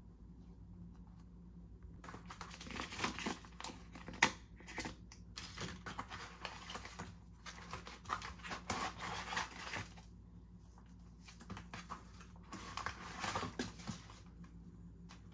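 Plastic food packaging crinkling and rustling in irregular bursts as vacuum-sealed packs are picked up and handled, with a lull in the middle.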